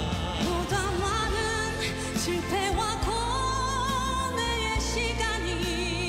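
A woman singing a slow Korean ballad with vibrato, over instrumental backing.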